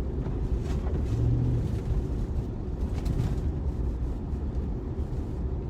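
Steady low rumble inside the cabin of a four-wheel-drive Z71 driving slowly through deep snow: engine and tyres running through snow ruts.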